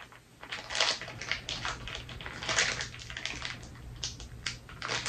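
Sticky marshmallow slime squelching and crackling as it is squeezed and pulled apart between the fingers, in a rapid, uneven run of little pops and clicks starting about half a second in.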